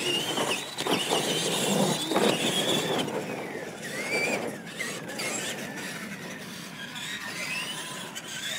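Electric radio-controlled monster trucks driving, their motors and gears whining in pitches that rise and fall with the throttle.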